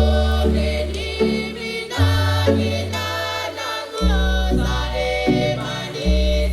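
Music: an electronic soundtrack with a deep bass note that changes about every two seconds under layered choir-like singing.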